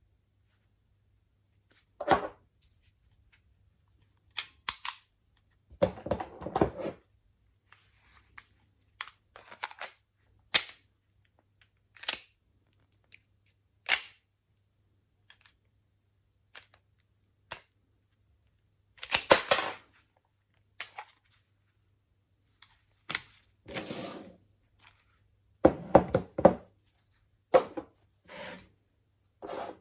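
Glock 17 replica pistols, an airsoft gas-blowback and a blank gun, being worked by hand: a string of separate sharp mechanical clicks and short rattling clusters at irregular intervals.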